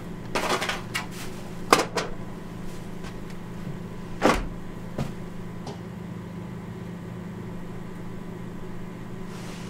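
A small freezer's door and foil takeaway trays being handled: a few sharp knocks and clatters in the first five seconds, the loudest about a quarter of the way in and again near halfway, over a steady low hum.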